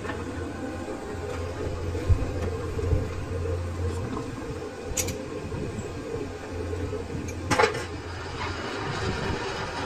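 Lathe running with a steady machine hum, broken by a few sharp metallic clicks, the loudest a short cluster near the end.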